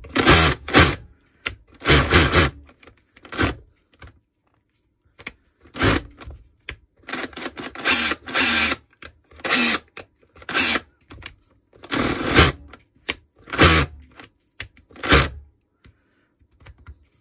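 Makita DHR242 18 V cordless rotary hammer run in about ten short bursts of the trigger as a test of whether it works. Each burst lasts from a fraction of a second to about a second and a half, with pauses between them.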